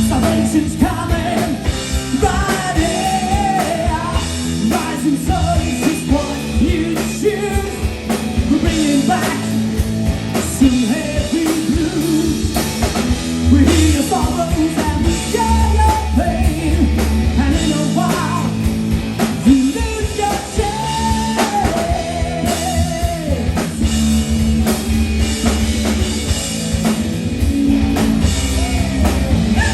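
Rock band playing live: drum kit, bass and electric guitars with a melodic lead line that bends in pitch, and singing.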